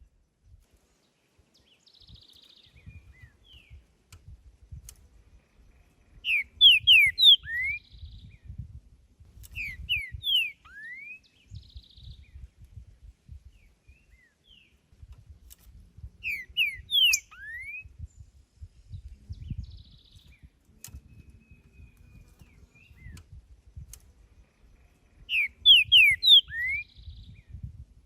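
Green-winged saltator (trinca-ferro) singing: four loud phrases a few seconds apart, each a quick run of clear falling whistles ending in a rising note, with softer notes between.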